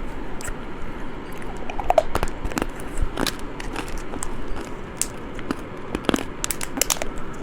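Close-miked eating of candy: irregular crunching bites and chewing, with sharp little cracks scattered throughout.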